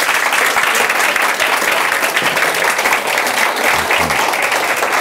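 Audience applause: many hands clapping together in a dense, steady patter.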